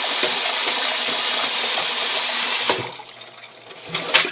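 Water running steadily from a tap, shut off a little under three seconds in; a few light knocks and clinks follow near the end.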